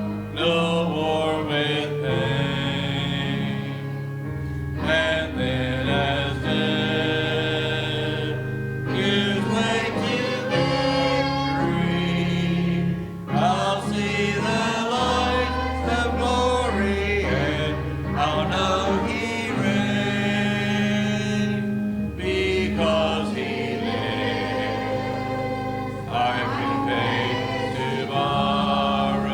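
A hymn sung by a group of voices over instrumental accompaniment that holds long, sustained bass notes.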